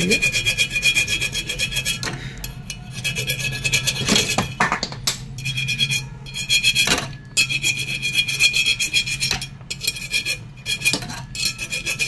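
Hand file rasping with rapid back-and-forth strokes on the copper pipe stub of a refrigerator compressor, in runs broken by short pauses, with a high ringing note while the strokes run. The stub is being filed down to bright, shiny metal so the copper-to-casting joint will take the braze.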